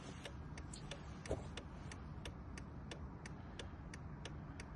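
Faint, steady ticking, about three ticks a second, with a soft knock about a second in.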